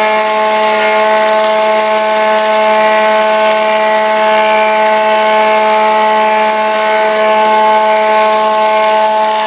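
1948 Barton wood planer running with a steady whine and an even hiss while planing Douglas fir boards.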